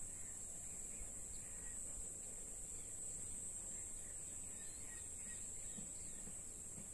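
Rural outdoor ambience: a steady high-pitched drone of insects, a few faint bird chirps, and a low wind rumble on the microphone.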